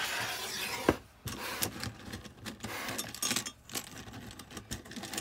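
Small wooden craft hearts clattering and clicking against each other and a tin mug as a hand rummages through them, with a sharp knock about a second in.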